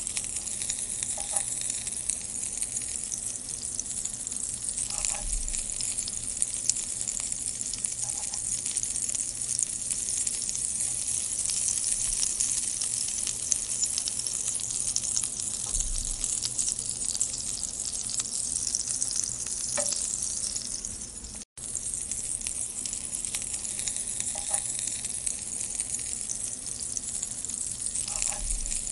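Green chilli rings sizzling in a frying pan: a steady crackling hiss with a few faint knocks from a wooden spatula. The sound drops out for an instant about three quarters of the way through.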